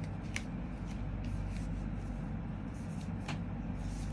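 A steady low hum, with two faint clicks of a bottle being handled, about half a second in and again about three seconds in.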